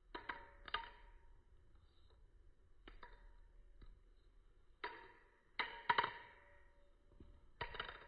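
Butterfly knife handles clicking against each other as the knife is flipped, each click leaving a short metallic ring at the same pitch. About seven clicks at uneven spacing, the loudest around six seconds in.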